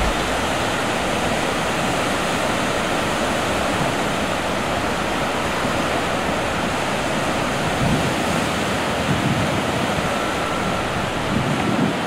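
Ocean surf washing steadily, a continuous rushing hiss with a few deeper surges in the second half.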